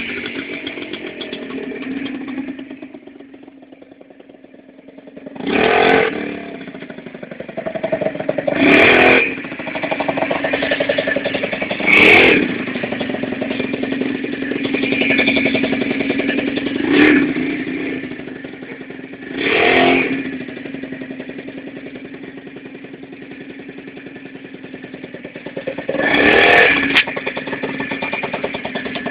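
Keeway Hurricane 50cc two-stroke scooter engine running on the move, its note easing off in the first few seconds and then holding steady, with about six short louder surges.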